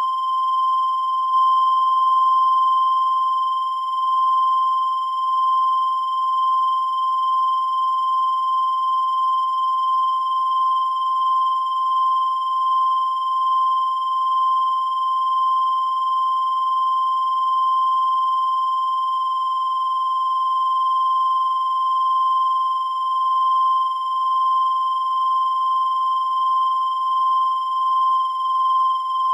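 A continuous high-pitched electronic tone held at one unchanging pitch. It sounds somewhat buzzy rather than pure, and its loudness wavers slightly.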